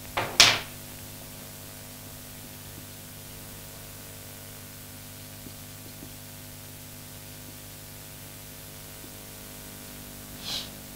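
Steady electrical mains hum with faint hiss. A short, loud hissing sound comes just after the start, and a fainter, higher one comes near the end.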